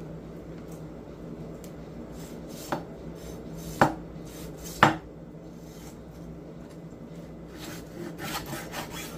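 Kitchen knife chopping raw chicken wings on a wooden cutting board: three sharp knocks of the blade hitting the board about a second apart, the last two the loudest, then a few lighter taps and rubbing near the end. A steady low hum runs underneath.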